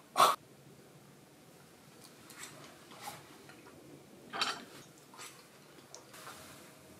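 A sharp clink of chopsticks against a ceramic dish near the start, then a few faint, scattered clinks and knocks of tableware and a drinking glass.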